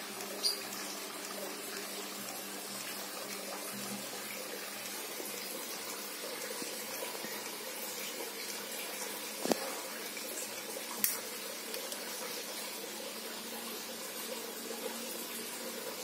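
Teckyo mini ceiling fan running: a steady rush of air from the blades over a low motor hum. Three short sharp clicks cut through, one about half a second in and two just past the middle. The fan is one that cannot spin freely and keeps hiccuping.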